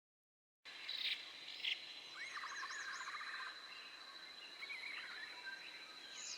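Dead silence, then from under a second in a tropical forest's ambience: a steady high-pitched insect drone with birds chirping and trilling over it. Two short sharp rustles or knocks sound near the start.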